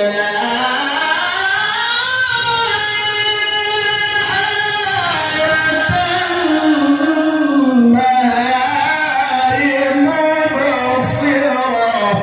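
A man's voice reciting the Quran in melodic tilawah style, singing long ornamented phrases whose pitch slides and bends on held notes.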